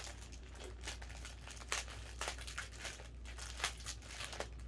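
Packaging crinkling and rustling as it is handled, in a run of short, irregular crackles.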